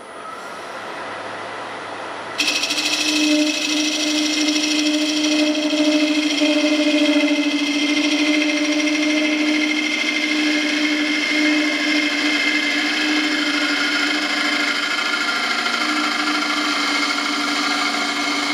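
Wood lathe spinning an oak cup blank. About two and a half seconds in, a turning tool bites into the inside of the bore, and the cut goes on as a loud, steady pitched buzz.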